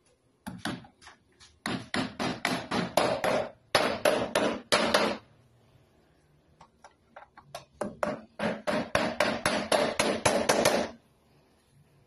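Claw hammer striking at a door hinge, in two quick runs of sharp blows, several a second, with a short pause between them.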